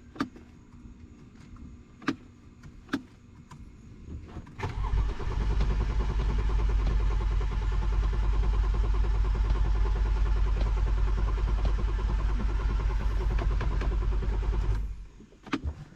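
A few clicks, then the 2008 BMW 335i's N54 twin-turbo inline-six cranking on its starter for about ten seconds with an even, rapid pulsing, never catching. It cuts off abruptly: the engine does not start.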